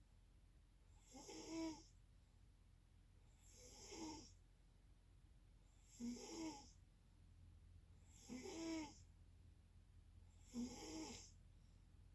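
Snoring in a steady rhythm: five snores, one about every two and a half seconds, each a short pitched rasp.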